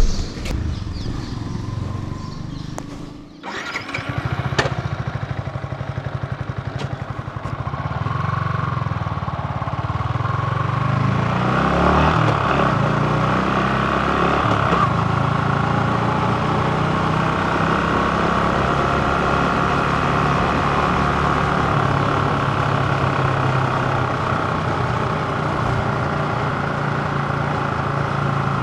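Yamaha MT15's single-cylinder engine is started about three seconds in after a few clicks, then runs steadily, its level and pitch stepping up briefly around the middle before settling into an even run.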